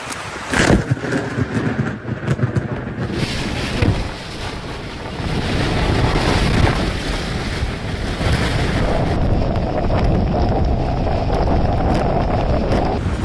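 Storm wind buffeting the microphone, with rushing, surging water. A sharp knock sounds just under a second in, and the sound changes abruptly about three seconds in and again about nine seconds in.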